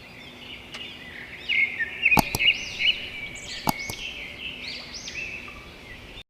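Many small birds chirping and twittering together, with a few sharp clicks in the middle. The birdsong cuts off suddenly near the end.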